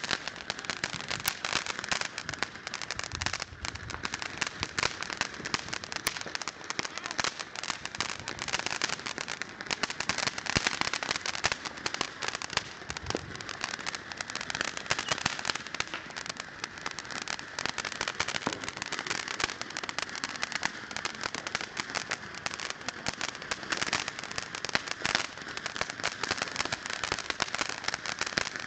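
Ground fountain fireworks spraying sparks: a steady hiss full of rapid crackles.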